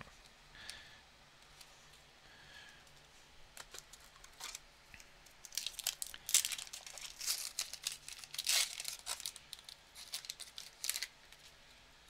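The wrapper of a 2020-21 Upper Deck Series 2 hockey card pack crinkling and tearing as it is ripped open by hand, a rapid run of sharp crackles that comes in about three seconds in and stops shortly before the end.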